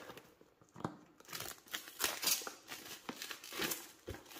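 Plastic shrink wrap being torn and peeled off a cardboard box by hand, with irregular crinkling and crackling that gets busier after the first second or so.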